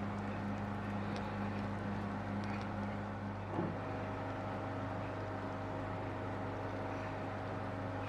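Electric hand mixer running steadily while whisking a milk and egg batter, with its hum shifting in pitch about three and a half seconds in.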